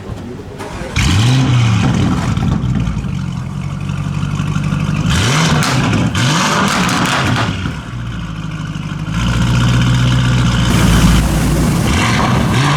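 Lamborghini Urus twin-turbo V8 running through a Novitec aftermarket exhaust, revved up sharply three times between steady stretches. Loud exhaust crackles and pops follow the revs.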